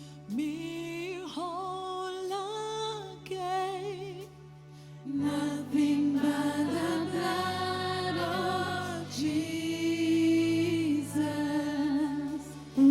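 Live gospel worship music: sung notes held with vibrato over sustained keyboard and bass tones, the music dropping back briefly and then swelling fuller and louder about five seconds in.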